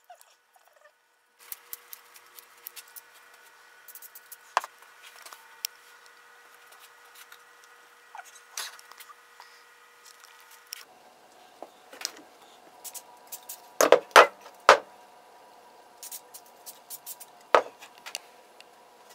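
Scattered clicks and knocks from a hand-made wooden puppet arm with a plastic spring hinge being handled and worked, over a faint steady hum. The loudest knocks come in a quick cluster about 14 seconds in, with another near the end.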